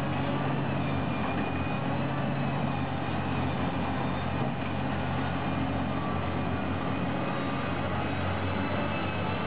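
Large hydraulic mining excavator's diesel engine running steadily under load as it digs into a pile of broken rock, a deep, even drone.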